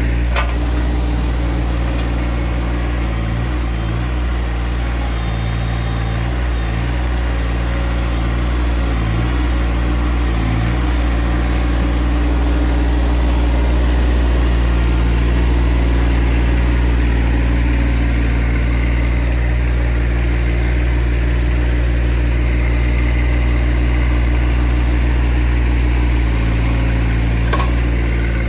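Tractor engine running steadily, its pitch dipping briefly several times in the first ten seconds as it takes load.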